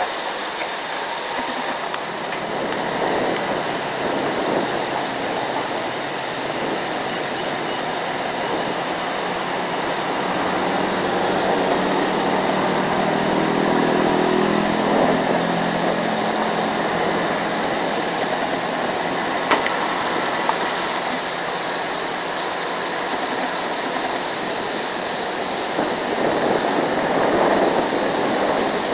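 JCB JS205 excavator's diesel engine working at a distance: a steady drone under a hazy rushing noise. About halfway through, a pitched engine note swells for a few seconds and then fades.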